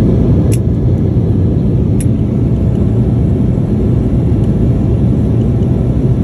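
Steady low rumble of jet airliner cabin noise in flight: engine and airflow noise heard from inside the cabin. Two faint clicks come in the first two seconds.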